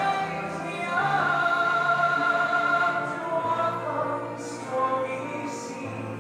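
Music with operatic singing: a voice glides up into long held notes over sustained low accompaniment.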